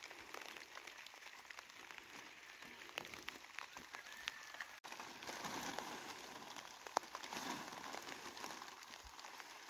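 Light rain pattering: scattered drops ticking over a soft steady hiss, with one sharper tick about seven seconds in.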